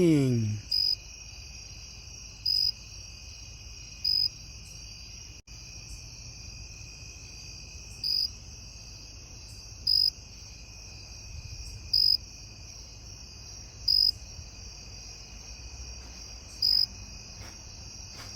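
A cricket chirping at close range in short, loud bursts roughly every two seconds, over a steady high-pitched background trill of insects.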